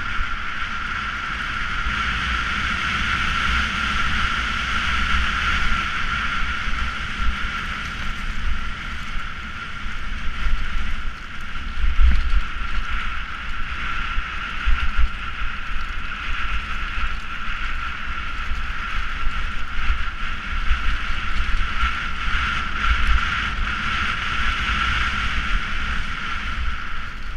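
Mountain bike descending a dirt track at speed: a steady rush of rolling tyre and bike noise, with wind buffeting the microphone in low gusts, heaviest about halfway through.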